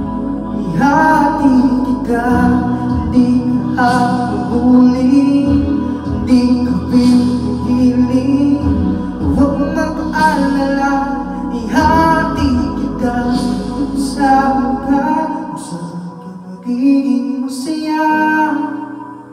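A man singing into a handheld microphone over a backing track; the low bass of the accompaniment drops out about three quarters of the way through, leaving the voice over lighter backing.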